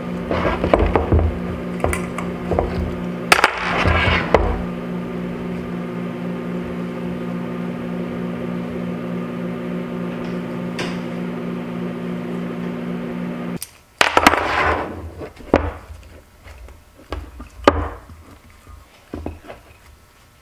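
Metal injection molds for soft-plastic baits clicking and clattering as their clamps are undone and the halves are opened and set down. A steady electrical hum runs beneath and cuts off suddenly about two-thirds of the way through.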